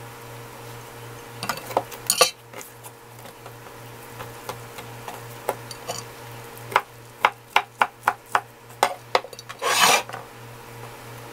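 Kitchen knife cutting rolled kelp pancake on a wooden cutting board: a few sharp knocks and a scrape about two seconds in, then a quick run of about nine knocks from about seven seconds in, ending in a short scraping rustle.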